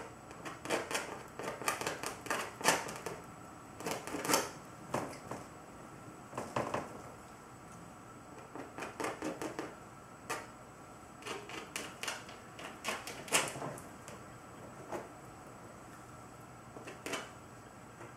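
Palette knife tapping and scraping acrylic paint onto canvas: irregular sharp taps and short scrapes, coming in quick bunches with pauses between.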